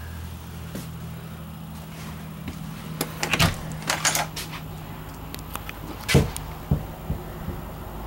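Knocks and rattles of a wooden interior door being handled, over a steady low hum. There is a cluster of knocks about three seconds in and a few sharper single knocks about six seconds in.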